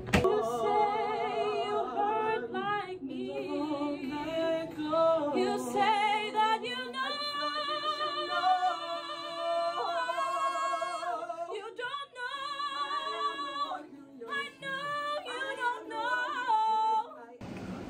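Unaccompanied singing of a musical-theatre number: a woman singing, joined later by two men, with vibrato on the held notes.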